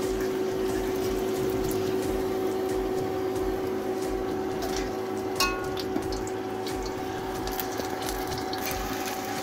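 Thin-dough meat pies frying in hot oil in a deep pot: a steady sizzle over a steady low hum, with a short click about five and a half seconds in.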